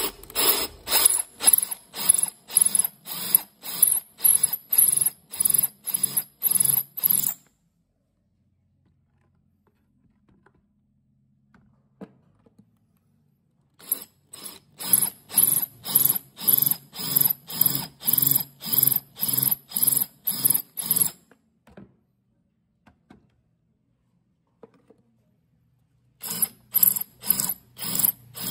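A tool working in rapid, even strokes, about three a second, with a high metallic ring to each stroke. The strokes come in three bouts separated by pauses of several seconds.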